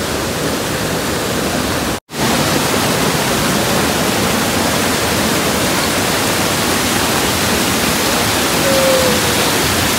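Heavy rain and a flooded hill stream pouring down stone steps: a steady, loud rush of water, broken by a split-second gap about two seconds in.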